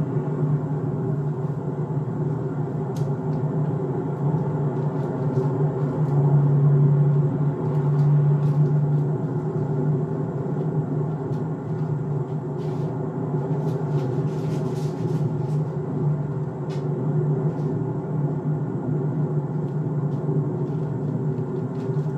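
Steady low hum of a car cruising at highway speed, heard from inside the car, swelling slightly a few seconds in.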